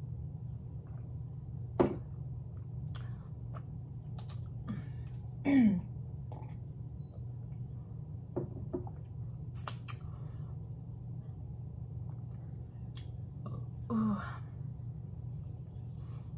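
Quiet mouth and drinking-glass sounds after a drink of water: a sharp click about two seconds in and scattered small clicks over a steady low room hum. A short throaty vocal sound falls in pitch about five and a half seconds in, and another brief one comes near the end.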